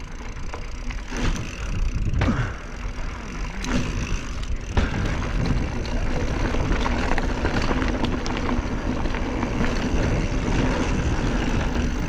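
Wind rushing over a chest-mounted action camera as a mountain bike rolls fast over a dirt and gravel trail, the knobby tyres crunching, with a few sharp knocks from bumps between about two and five seconds in.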